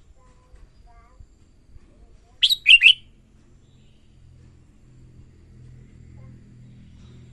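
Red-whiskered bulbul singing one short, loud phrase of three quick notes about two and a half seconds in.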